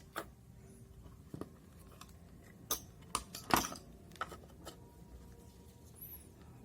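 Scattered light clicks and taps of small hard parts being handled, irregular, with the loudest cluster about three to four seconds in.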